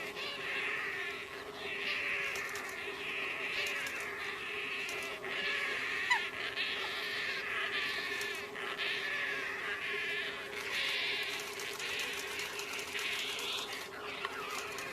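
A small bird chirping in rapid, buzzy trilled phrases about a second long, repeated one after another, over a steady low hum.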